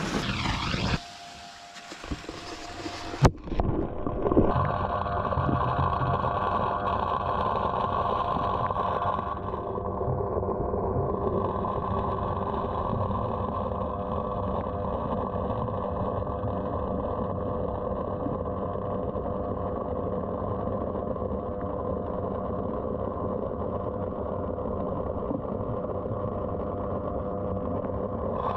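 Electric water pump driving a homemade pipe ejector, heard underwater: a steady muffled motor hum with several held tones. A sharp click about three seconds in.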